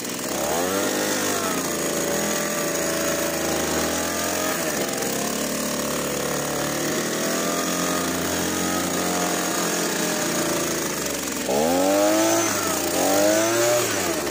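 Handheld leaf blower running and blowing, its pitch rising and falling as the throttle is worked, with two quick revs up near the end.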